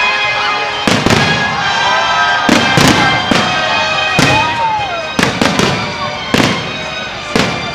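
Fireworks salute bursting overhead: a string of sharp bangs, about a dozen, some in quick pairs, over music playing throughout.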